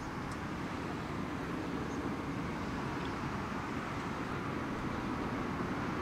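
Airbus A350-1000's twin Rolls-Royce Trent XWB-97 turbofans at climb power, heard from the ground as a steady, distant jet rumble and hiss.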